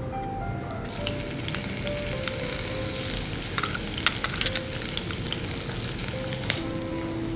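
Ghee tempering sizzling in a kadai with mustard seeds, cumin, urad and chana dal as chopped green chillies are spooned in. The sizzle picks up about a second in, with a few sharp clicks around the middle.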